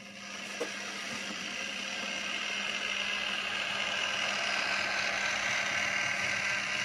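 Small electric motor of a Bachmann Spectrum Peter Witt HO-scale model streetcar whirring as it runs along the track. The noise swells over the first few seconds as the tram nears and passes close by, then holds steady, over a constant low hum. There is a single faint click about half a second in.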